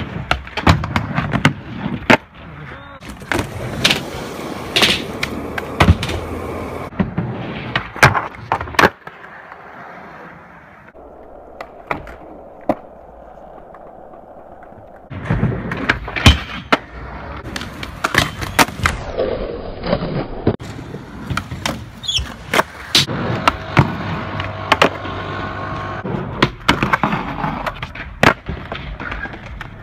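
Skateboards rolling on concrete, with repeated sharp clacks of boards popping and landing. There is a quieter stretch of several seconds near the middle.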